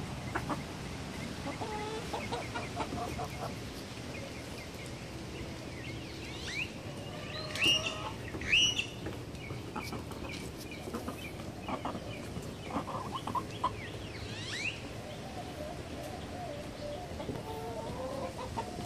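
Hens clucking while feeding, with a few loud, sharp squawks in the middle and soft low clucking near the end.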